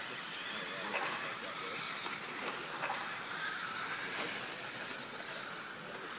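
Several 1/10-scale electric 2WD RC buggies with 17.5-turn brushless motors racing on dirt: a steady high hiss of motor whine and tyres on the track, with high whines that rise and fall as the cars accelerate and slow.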